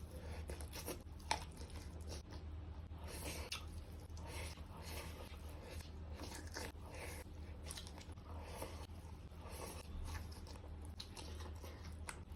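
Close-miked eating: irregular bites and chewing with soft crunchy and wet mouth sounds, with one sharp click about a second in, over a steady low hum.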